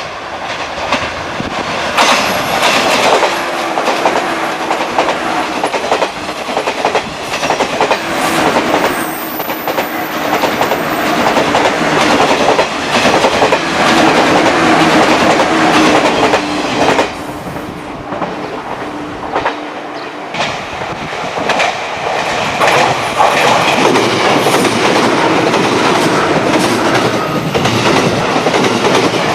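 Tokaido Line electric train passing at speed, its wheels running over the rails, with a steady hum through the first half. The noise eases briefly about two-thirds of the way through, then builds again.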